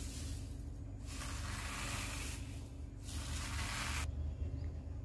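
Thin dry vermicelli being crushed and snapped by hand on a plate: a crackling rustle of breaking strands that stops about four seconds in, over a steady low hum.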